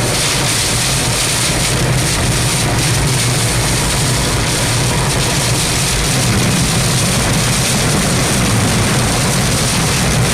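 Loud, steady roar of a vehicle driving through strong tornado winds and rain, with a deep low rumble under a hiss of wind and rain.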